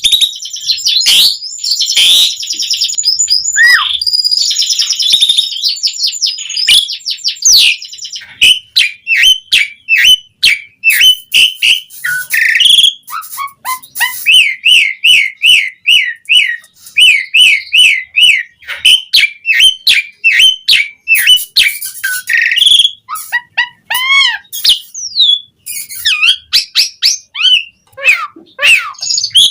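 Asian pied starling singing vigorously: a fast, varied run of loud whistles, chirps and sharp clicks, with a stretch of quickly repeated rising whistled notes in the middle.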